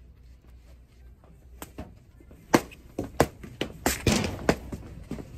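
Foam pool noodles swung and whacked in a mock sword fight: a string of sharp whacks starting about a second and a half in, the loudest about halfway, with a quick flurry of hits around four seconds.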